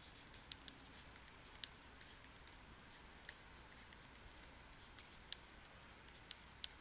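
Near silence broken by faint, irregular clicks of a stylus tapping and writing on a tablet screen.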